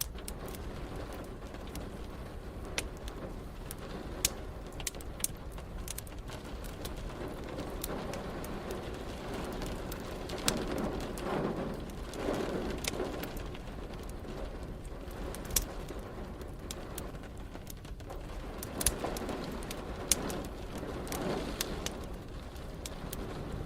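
Wood fire crackling with frequent sharp pops over steady rain. Low rumbles of thunder swell up twice, about halfway through and again near the end.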